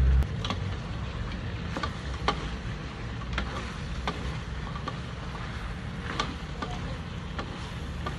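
Wooden spatula stirring chicken wings in a metal wok, knocking and scraping against the pan at irregular moments over a steady hiss and low hum from the cooking.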